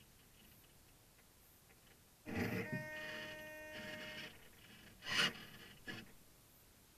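Radio-control servos inside a 1/12-scale Nonsuch 30 model sailboat whirring: a steady geared whine for about two seconds, then two short buzzes about a second apart.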